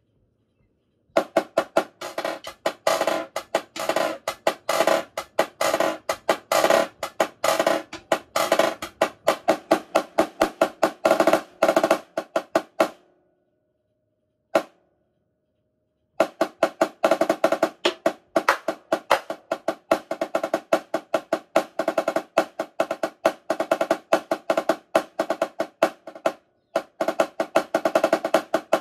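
Marching snare drum played solo: long runs of rapid, sharp strokes with the head ringing under them. The playing starts about a second in, stops for about three seconds in the middle apart from a single hit, then resumes, with a short break near the end.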